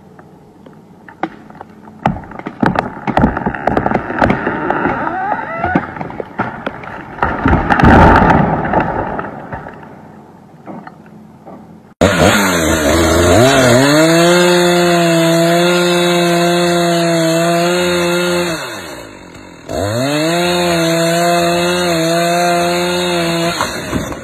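A large cedar tree cracks and snaps, the cracks building to a loud crash about eight seconds in as it comes down. About halfway through, a chainsaw cuts in abruptly and runs at full throttle through a huge felled cedar log. It eases off briefly near the end, then revs back up.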